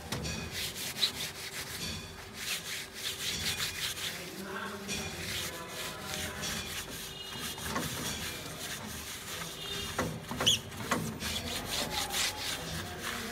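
Scratchy rubbing on wood in irregular strokes, with a few sharp clicks, over a faint steady hum.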